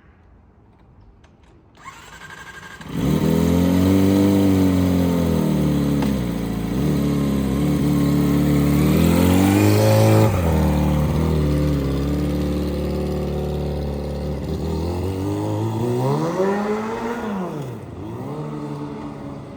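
Loud vehicle engine exhaust from a worn-out silencer (muffler). The engine comes in about three seconds in and is revved up and down several times, with its highest rev about halfway through. The loudness means the silencer needs replacing.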